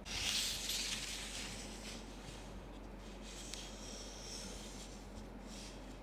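Faint rustling and scraping of wires and plastic computer-fan frames being handled, with a louder hissy rustle in the first second or so.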